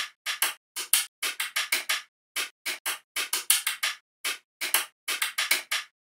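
Small magnetic balls clicking and snapping onto one another as a model is built from them: a quick, irregular run of sharp clicks, about four a second.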